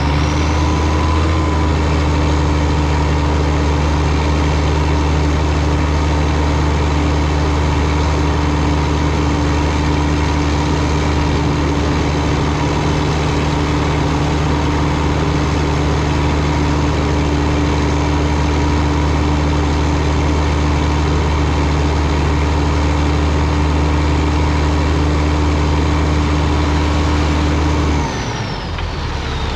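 Heavy diesel engine brought up to raised revs and held steady for about half a minute, with a high whine that climbs as it revs up and falls away as it drops back toward idle near the end.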